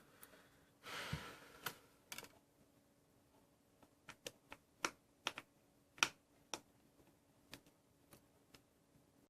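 Small sharp clicks and taps of tools and cable connectors being worked loose from a MacBook Pro's motherboard, about a dozen at irregular intervals, with a brief scraping rustle about a second in.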